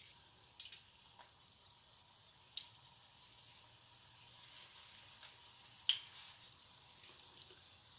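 Chicken meatballs frying in hot oil in a wok: a faint, steady sizzle with a handful of sharp crackling pops spread through it.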